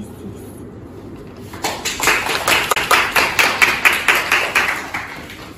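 A roomful of students applauding with hand claps. The clapping starts about one and a half seconds in, is quick and dense, and dies away near the end.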